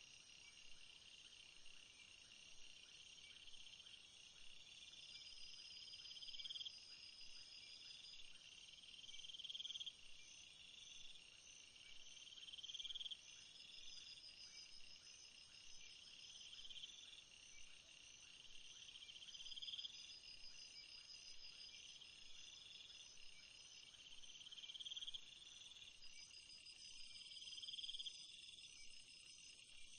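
Faint late-night jungle ambience of a steady, high insect chorus. One trill swells over a second or so and cuts off sharply, and it repeats about every three seconds over a continuous high buzzing.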